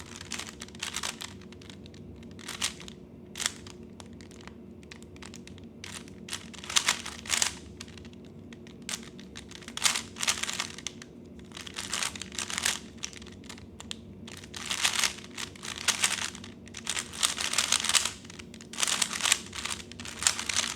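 3x3 Rubik's cube being turned fast through a timed speedsolve: quick runs of plastic clicks and clacks from the layers turning, in bursts with short pauses between, over a faint steady hum.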